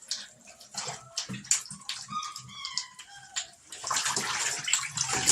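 Water splashing and sloshing in a bathtub as a four-week-old Bernese Mountain Dog puppy is bathed, with a few short, high puppy whimpers about two seconds in. From about four seconds in comes a louder rush of splashing water.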